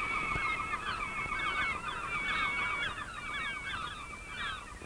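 A flock of gulls calling, many short downward-sliding cries overlapping one another.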